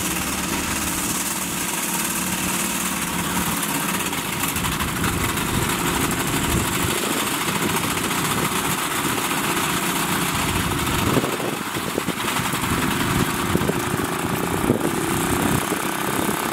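A small engine running steadily while dry marsh grass and reeds burn, with sharp crackles coming more often in the second half.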